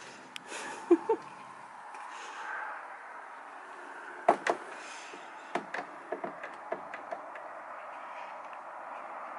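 A glass balcony door being opened: two sharp knocks about a second in, a louder double knock a little past four seconds, then a scatter of lighter clicks, over a steady hiss from outside.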